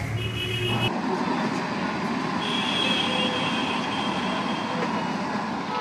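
Large pot of milk boiling for tea over a gas burner: a steady rushing noise of the flame and boil, with a thin high whine about midway. A low hum cuts off about a second in.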